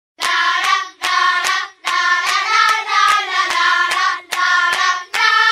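Pop song intro: layered female vocals sing in short phrases over a steady beat of hand claps, about two and a half claps a second.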